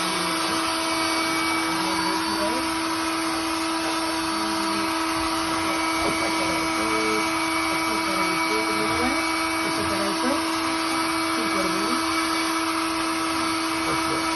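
A small electric motor running steadily: a constant hum with hiss over it.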